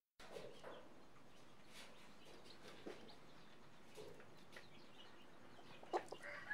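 Domestic chicken chicks peeping faintly now and then over a quiet background, with a short, sharper sound about six seconds in.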